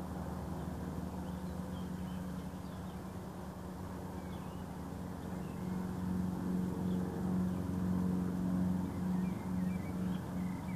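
An engine running steadily, a low hum that grows louder a little past halfway, with faint bird chirps above it.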